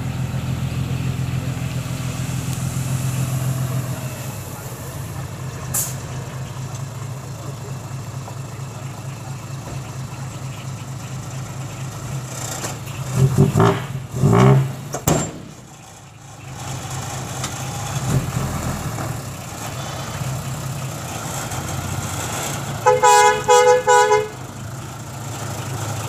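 Six-wheel dump truck's diesel engine running steadily while its bed is tipped, louder for the first few seconds then settling. Loud bursts about halfway through, and a quick series of about four horn toots near the end.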